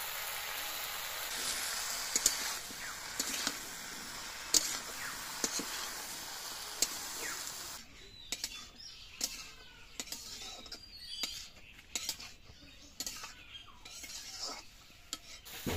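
Malabar spinach and vegetables sizzling in a kadai while a spatula stirs them, with sharp clinks and scrapes of the spatula against the pan. About eight seconds in the steady sizzle drops away, leaving quieter scraping and clinks of the stirring.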